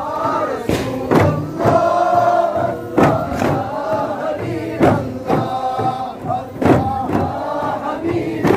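A group of men chanting a Ratheeb dhikr together, with sharp strikes on duff frame drums cutting through the chant roughly once a second.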